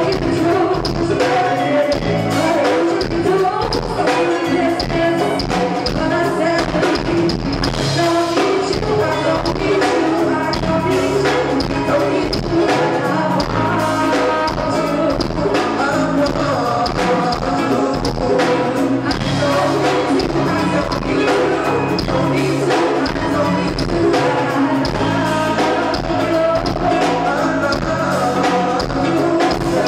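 Go-go band music: a woman singing lead over keyboard chords and a steady drum and percussion beat.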